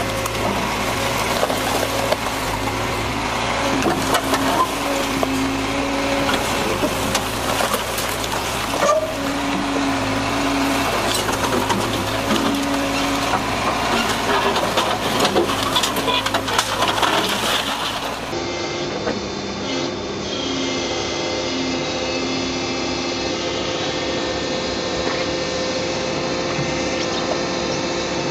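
An excavator's bucket crushing a large metal drum-shaped object, with dense hissing, crunching and scattered knocks over the machine running. About 18 seconds in the sound cuts to a steadier hum from a 140LCV tracked excavator's diesel engine as it digs in mud.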